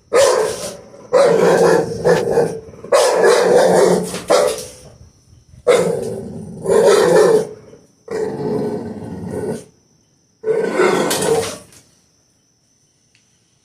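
Bulldog barking hard: a run of about eight deep, growling barks, each about a second long, stopping about two seconds before the end.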